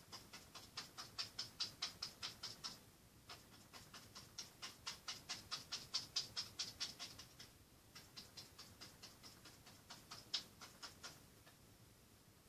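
Paintbrush scrubbing back and forth on a canvas in quick short strokes, about five a second, in three runs with brief pauses between them.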